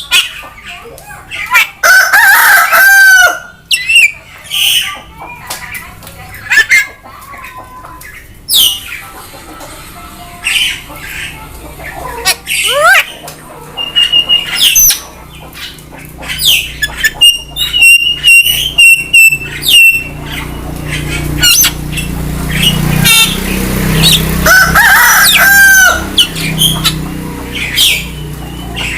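Javan myna giving a loud run of varied, unusual calls: harsh squawks, clicks, a rapid string of short repeated notes, and long bending calls about two seconds in and again near twenty-five seconds.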